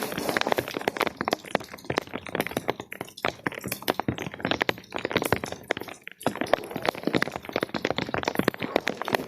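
A wet carpet being scraped in quick, rasping strokes, with rain falling throughout; the strokes pause briefly about three and six seconds in.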